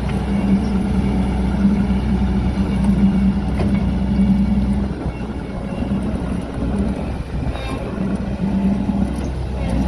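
Yanmar diesel engine of a Gehl RT210 tracked skid steer loader running steadily, easing off a little about halfway through.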